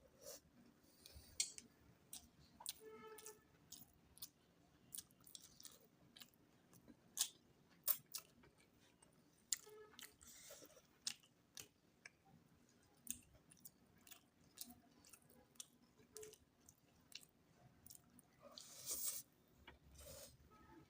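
A person chewing food up close, with many sharp mouth clicks and smacks and a few longer rustling sounds.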